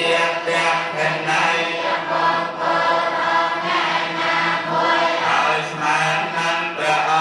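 Theravada Buddhist monks chanting together in unison on a steady, low monotone pitch.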